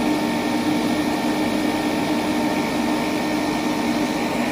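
NAVAC NRDD refrigerant recovery machine running steadily, its compressor pumping refrigerant out of the system into a recovery cylinder, with a steady hum under a fan rush.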